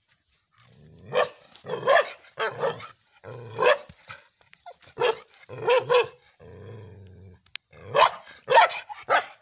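Indian Spitz dog barking repeatedly, about ten short barks in uneven groups with short pauses between them.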